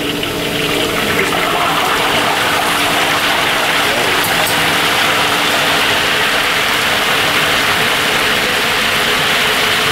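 A whole snapper deep-frying in a wok of hot oil. The oil breaks into a loud, steady sizzle about a second in, as the fish goes in.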